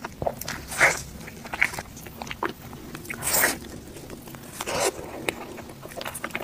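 Close-miked eating: bites into a soft cake with black sesame filling and wet chewing, with a few louder bites about a second in, around three and a half seconds and near five seconds.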